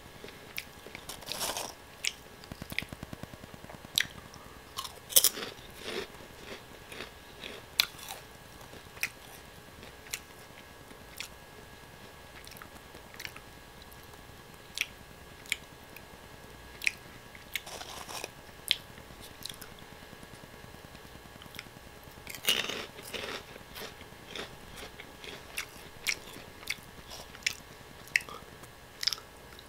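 Close-up crunching and chewing of crunchy Oh!Gamja potato snack sticks: sharp crunchy bites every second or two, with louder bouts of chewing about a second in, around five seconds in, near the 18-second mark and around 22 seconds in.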